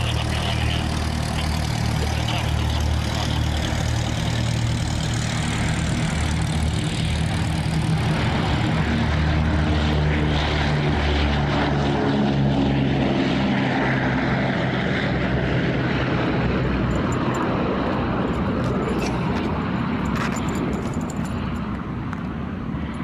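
Boeing B-17G Flying Fortress's four Wright R-1820 Cyclone radial engines at takeoff power, a steady propeller drone as the bomber runs down the runway, lifts off and climbs away. The drone is loudest in the middle and fades near the end as the plane climbs out.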